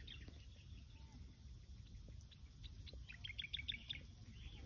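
Faint bird chirps: a few high chirps at the start and a quick run of them about three seconds in, over a low outdoor rumble.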